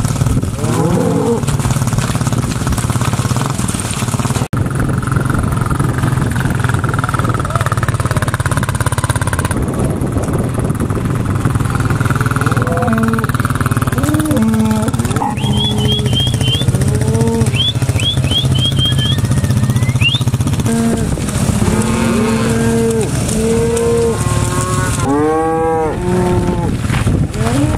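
A herd of Black Angus cattle mooing over and over, the calls coming thicker in the second half, over a steady engine hum.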